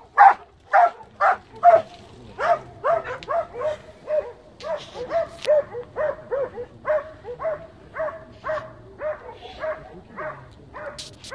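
Hunting hound barking over and over at a steady pace of about two barks a second, the sound of a hound baying a wild boar.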